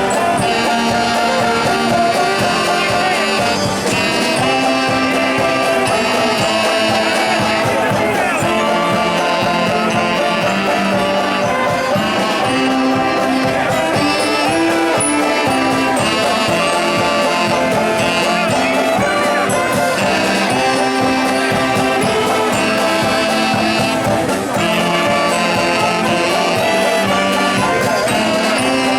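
Mummers string band playing a lively tune: saxophones, accordions, banjos and glockenspiel together over a steady beat.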